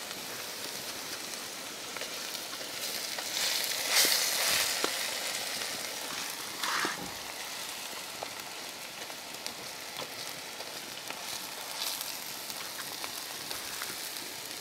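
Onion and grated carrot sizzling steadily in hot oil in a kazan, with a louder swell about four seconds in and a few small clicks.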